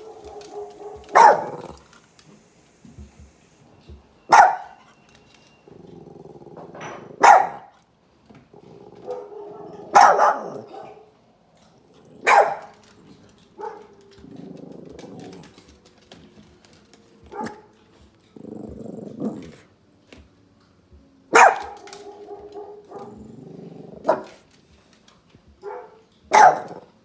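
Dog barking: single sharp barks every few seconds, about seven in all. Between them come quieter, longer, low sounds.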